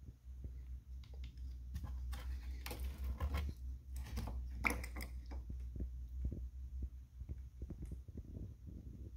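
Radiator cap on a cold 2013–2018 Nissan Altima being twisted and pulled off its filler neck: a run of clicks and scrapes from about two to five and a half seconds in, the sharpest click just before five seconds. A steady low hum runs underneath.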